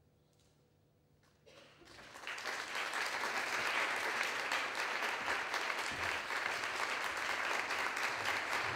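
Audience applause, starting about a second and a half in and building within a second to steady, dense clapping.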